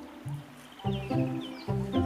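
Documentary background music: sustained chords that enter about a second in and again near the end, with a run of faint short, high, falling chirps over them.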